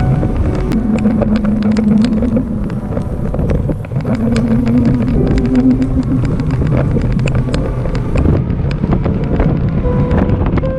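Background music with held notes and a beat, over a steady low rumble of traffic and road noise.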